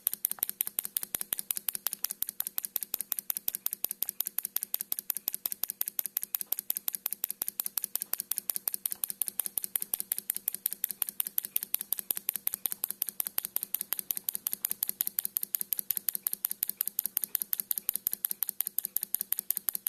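Solenoid engine running steadily: the solenoid plunger clacks with every stroke of the flywheel, a fast even rhythm of sharp clicks, about five a second.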